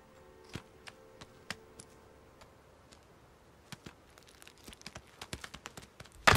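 Markhor hooves tapping and clattering on rock as the goats clamber over a cliff face, with small stones knocking. A few separate taps at first, then many more from about four seconds in, and one loud knock near the end.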